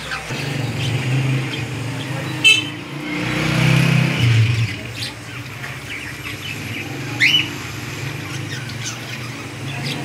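Busy market ambience: a steady low traffic rumble with background voices, a short high toot about two and a half seconds in, and caged parrots chirping, with one sharp rising squeak about seven seconds in.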